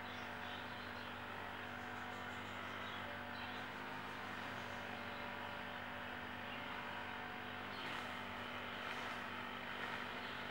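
A steady background hum of several fixed low tones under a faint even hiss, unchanging throughout.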